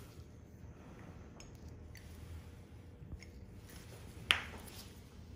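Faint metallic ticks from small stainless surgical instruments being handled, with one sharp click about four seconds in, as a nail nipper works the nail-bed margins.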